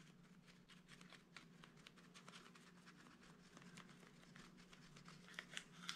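Near silence: faint light taps and rustles of a folded paper towel dabbed onto soft epoxy to texture it, with a few slightly louder taps near the end.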